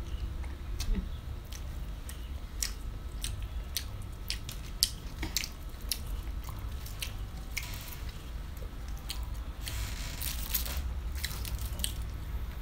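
Close mouth sounds of eating: chewing, lip smacks and crunching of fresh vegetables and lettuce wraps, heard as many irregular short clicks, with a brief rustling crunch about ten seconds in. A low steady hum runs underneath.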